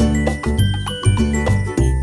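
Background music with a steady beat: pulsing bass notes under high, ringing, bell-like melody notes.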